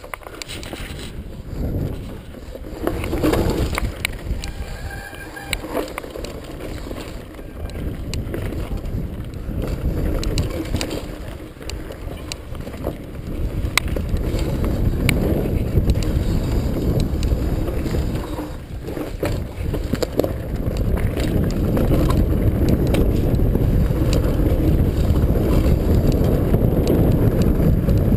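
Mountain bike descending a dirt trail: tyres rumbling over the ground and wind buffeting the microphone, with frequent short rattles and knocks from the bike over bumps. It grows steadily louder as the bike gathers speed.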